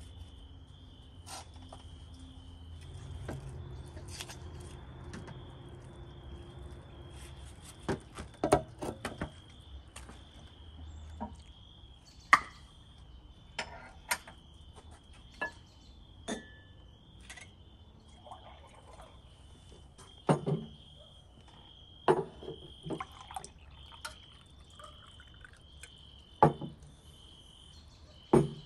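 Insects chirping in a steady, regular high pulse, with scattered sharp knocks and clicks over it, about half a dozen of them loud.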